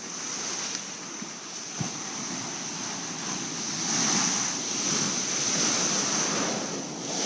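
Big waves crashing and surging in strong wind, with wind buffeting the microphone. The surf swells loudest from about four seconds in.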